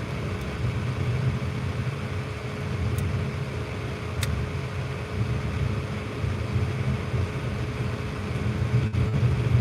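Steady low rumble with a faint steady hum, and two faint clicks about three and four seconds in.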